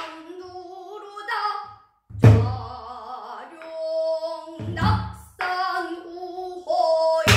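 A woman singing Korean Namdo folk song (danga) in long, wavering held notes, accompanied by a buk barrel drum: deep drum strokes about two seconds in and near five seconds, and a sharp stroke near the end.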